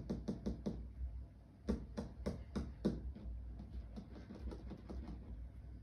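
Rapid, even tapping, about three to four sharp taps a second, in two short runs with a pause between, made by hand to call a wandering puppy back.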